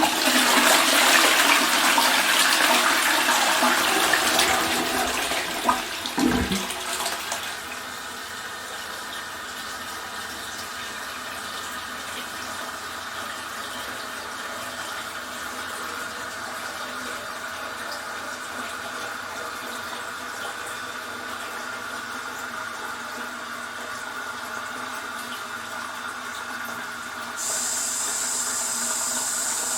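Toilet flushing: a sudden loud rush of water for about seven seconds with a single knock near the end of it, then the tank refilling with a steady, quieter hiss of running water. About 27 seconds in, a higher hiss sets in.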